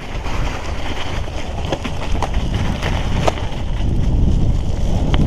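Mountain bike rolling downhill over a snowy trail: tyres on snow with the bike rattling and a few sharp knocks over bumps, under a rumble of wind on the microphone that grows louder as speed builds.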